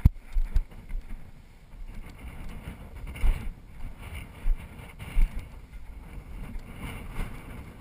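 Wind buffeting the microphone: an uneven low rumble with a few sharper low thumps.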